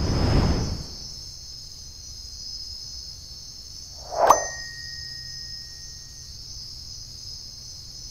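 Steady high-pitched chorus of night insects, over a low hum. Added sound effects cut in: a swoosh at the start, and a bright bell-like ding about four seconds in whose tone rings on for a couple of seconds.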